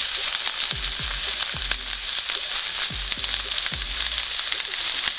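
Chopped onion, carrot and sweet pepper frying in sunflower oil in a frying pan over medium heat: a steady sizzle with small crackles of oil, as a wooden spatula stirs the vegetables.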